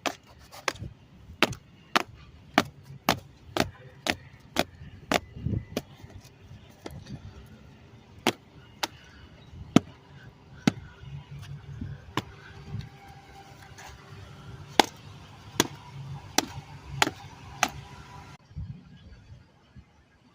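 Pickup truck engine running under the open hood with irregular sharp snapping clicks, roughly one or two a second, on a truck logging a misfire on cylinder 5. The sound drops off sharply a couple of seconds before the end.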